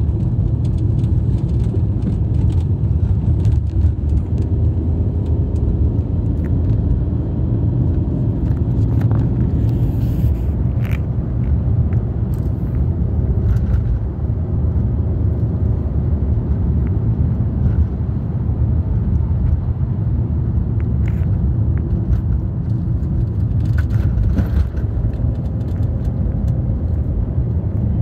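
Steady low rumble of a BMW 318i E46's four-cylinder engine and its tyres on the road, heard from inside the cabin while driving at a constant pace. There are a few light clicks about ten seconds in and again near the end.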